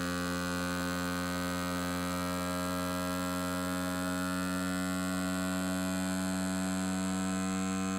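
Ninja FreshVac battery-powered handheld vacuum pump running with a steady, even motor hum, drawing the air out of a sealed single-serve blender cup.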